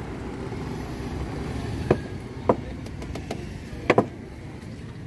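Steady street traffic rumble, with a handful of short sharp knocks, two of them close together about four seconds in.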